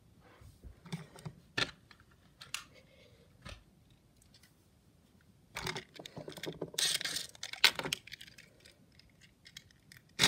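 A Hexbug Witch Doctor toy battlebot being handled: scattered light plastic clicks and taps, then a denser stretch of rattling and scraping about six to eight seconds in.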